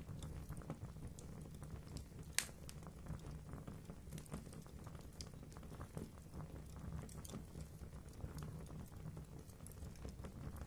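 Fire burning in a fireplace: a low steady rumble of flames with irregular crackles, and one sharper, louder pop about two seconds in.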